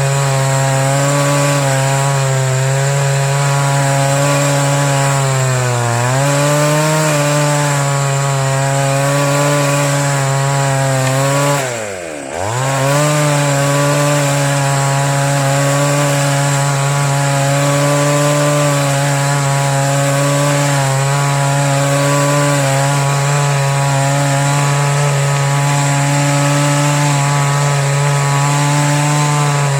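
Two-stroke chainsaw running at high speed, cutting wood. Its engine pitch sags briefly about six seconds in, then drops sharply and quiets for a moment about halfway through before climbing back to full speed.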